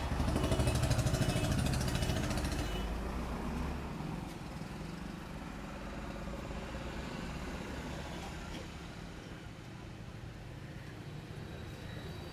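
A motor vehicle's engine passing close, loud and pulsing for the first few seconds and then fading, over a steady background of street traffic noise.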